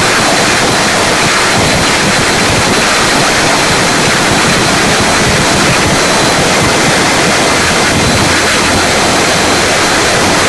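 A loud, steady wall of harsh noise from a noise-music track, with a faint high tone held through it.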